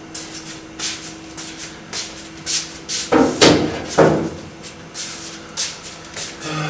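Plastic back cover of an LCD TV being handled and lifted off: a series of knocks, scrapes and clacks, the loudest a little past halfway, over a faint steady hum.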